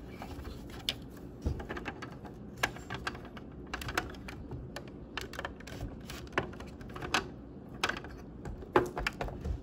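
Irregular light clicks and taps, several a second, over a faint steady background.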